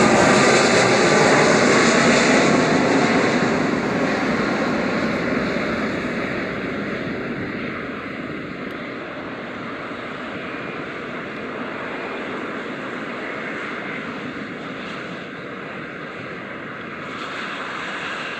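Jet engines of a Boeing 757-200 (Rolls-Royce RB211s) on final approach, loudest as it passes close in the first few seconds, with a sweeping whine through the roar. The noise then fades over several seconds to a steadier, lower rumble as the aircraft lands and rolls out down the runway.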